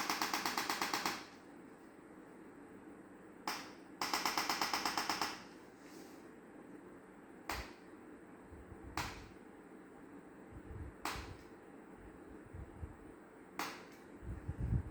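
Chiropractic adjusting gun firing two rapid strings of clicks, about ten a second for roughly a second each, with single sharp clicks between them. Dull low thumps come in the second half, the loudest near the end.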